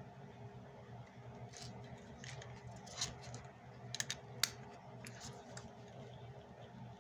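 Matchbox Superfast horse trailer toy being picked up and turned over in the hand: a run of light clicks and taps, the sharpest between about three and four and a half seconds in, over a steady low hum.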